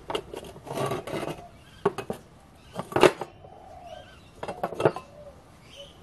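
Steel tongs clanking and scraping against a steel ingot mould as it is tipped over and the solid cast aluminium ingot knocked out onto the board: a series of metallic clinks and knocks, the loudest about three seconds in.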